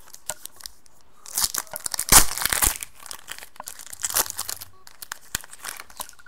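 Foil wrapper of a Panini Contenders football card pack being torn open and crinkled by hand: runs of crackling rustle, loudest about two seconds in, with shorter bursts later.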